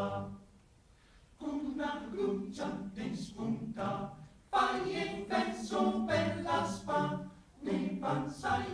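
Male choir singing a cappella: a held chord dies away at the start, then after a pause of about a second the voices come back in with the next phrase, louder from about halfway through.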